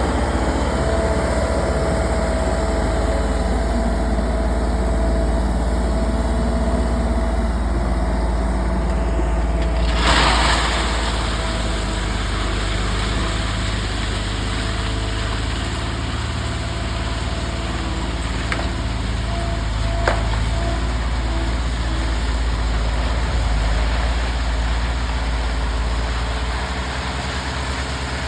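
A vehicle engine running steadily with a strong low rumble, and a brief rush of noise about ten seconds in.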